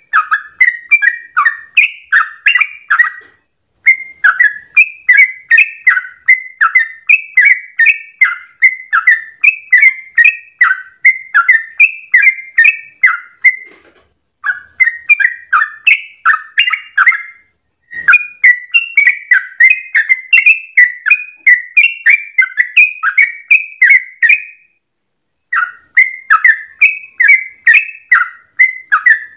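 Yellow-vented bulbul (trucukan) singing its long, rapid 'ropel' song: a fast run of liquid chirping notes, about two or three a second, broken by brief pauses three or four times.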